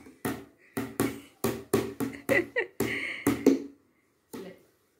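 A quick, uneven run of about ten sharp hand claps mixed with short voice sounds, stopping about three and a half seconds in; a couple of faint taps near the end.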